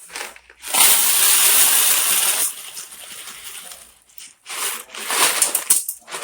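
Dry elbow macaroni rattling out of its cardboard box, poured in two goes, about a second in and again near the end.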